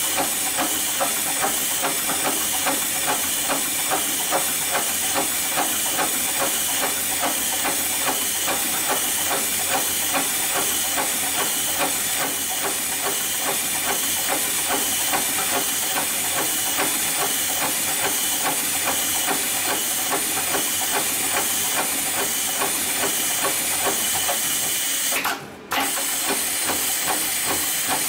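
Heavy-duty industrial rope sewing machine running steadily, stitching an eye splice with a fast, even rhythm of needle strokes over a steady motor and hiss. There is a brief break about 25 seconds in.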